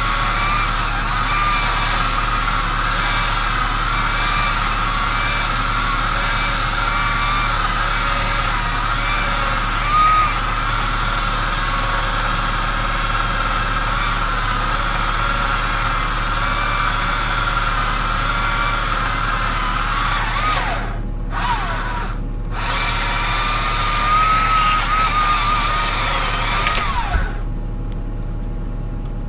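A land-clearing machine's engine and hydraulics running steadily under load while pushing debris, with a wavering whine. The higher part of the sound cuts away suddenly near the end.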